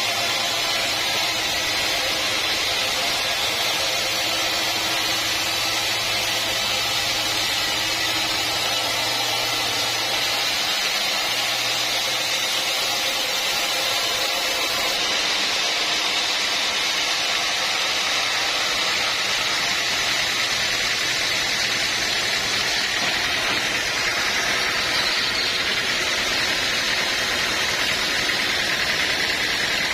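Sawmill machinery running steadily: a constant loud hissing noise with a faint low hum underneath.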